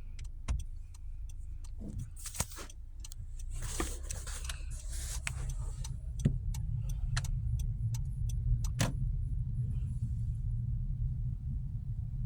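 Honda CR-V's engine and road noise heard from inside the cabin while driving: a steady low rumble that grows louder a few seconds in as the car picks up speed, with scattered sharp clicks and taps and a brief hiss.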